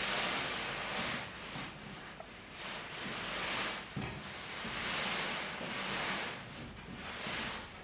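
A pleated woven cloth set with small metal plates is swished and rustled by hand as it is spread and twisted. The rustling rises and falls in repeated swells of a second or so each, with a few faint clicks.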